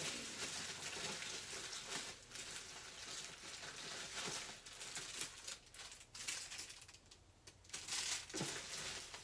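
Rummaging through packaging and supplies: a stream of crinkling and rustling with small knocks, easing off about seven seconds in and picking up again.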